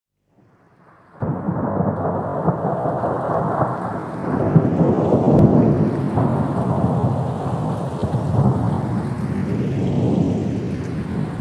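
Wind buffeting the microphone of a camera held out of a moving car's window: a loud, steady rushing noise that starts suddenly about a second in.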